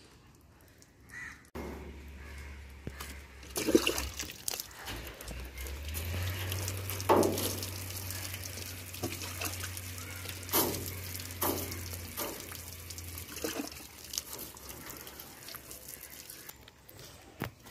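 Water thrown by hand from a mug onto a truck's front grille and cab while washing it: several separate splashes, the loudest about 7 seconds in, with water running and dripping off the metal in between.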